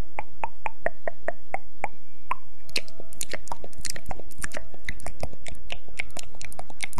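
Close-miked crisp clicks in a quick even series, about four a second, becoming faster and sharper about three seconds in.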